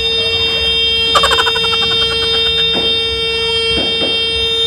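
A horn held in one long steady note for noise-making, with a few short knocks under it.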